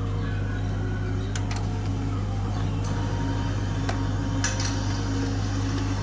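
HP LaserJet 1320 laser printer running as it prints its configuration page after its button is held down: a steady motor hum, with a few light clicks as the sheet feeds through.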